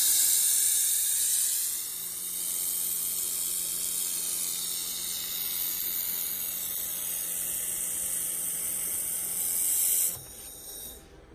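Handheld fiber laser welding gun running a bead along a sheet-metal T-joint, with a steady high hiss. The hiss cuts off sharply about ten seconds in, and a fainter hiss lingers for about a second.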